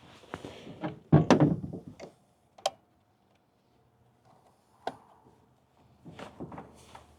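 Handling noises: a series of knocks and clunks, the loudest a cluster about a second in, with no engine running.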